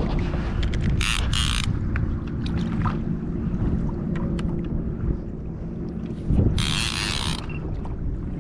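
Wind buffeting the microphone over water around a kayak, a steady low rumble, with two short hissing bursts of water sound, one about a second in and one about seven seconds in.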